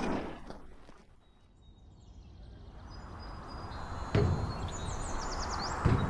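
Outdoor field ambience fading up from near silence, with a few short, high bird chirps. Two thumps, about four seconds in and near the end, are boots on the steel ladder steps of a John Deere combine.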